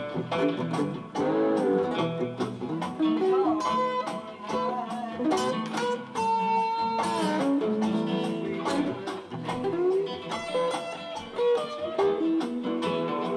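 Blues instrumental on an acoustic guitar with a slide guitar; the slid notes glide up and down in pitch every few seconds.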